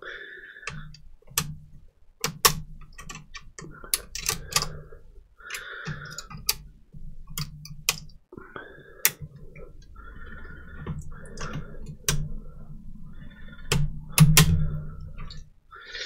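Irregular clicks, taps and rustling of hands handling a Dell D620 laptop's plastic parts while freeing its display cable and lifting off the screen assembly. There is a louder run of handling noise near the end.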